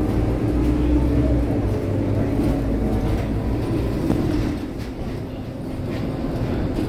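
Scania K230UB city bus running under way, heard from inside the cabin: a steady low diesel drone with a held whine. It eases off in loudness about four and a half seconds in, then builds again.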